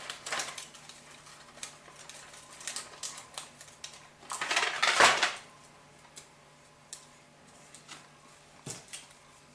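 Small handling noises of paper-craft work on a cutting mat: light taps, clicks and rustles of paper pieces and tools, with one louder crinkling rustle about four and a half seconds in.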